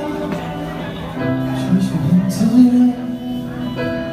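Live band music: held chords with a melody line that slides between notes.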